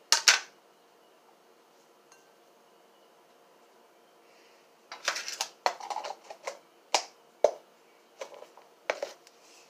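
A plastic food tub's lid clicks off, then after a pause comes a string of clinks and rattles as white granules are tipped from the tub into a glass mixing bowl of crushed tortilla chips.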